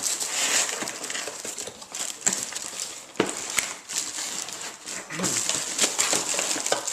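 Packaging rustling and crinkling by hand, with many sharp clicks and knocks, as a boxed coffee grinder is unpacked.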